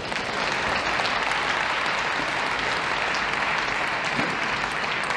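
Crowd applauding steadily after a point in a table tennis match.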